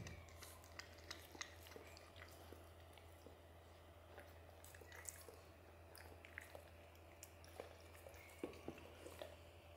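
A kitten gnawing and licking raw meat on a bone: faint, scattered wet chewing clicks over a low steady hum.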